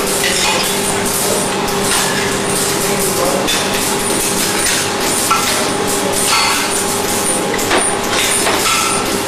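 Steady workshop hum with scattered small clinks and knocks from hand work at a PVC label moulding bench.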